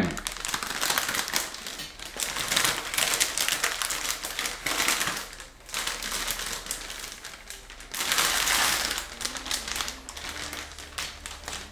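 Crinkling and rustling of a new motherboard's packaging being handled and opened, with many light clicks and taps; the bursts come in waves and are loudest about a second in and again around eight seconds.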